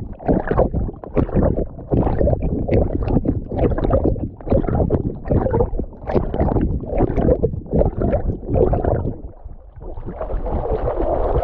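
Water sloshing and splashing right against a dog-mounted GoPro in a steady rhythm of about two splashes a second, giving way to a steadier rush of water near the end.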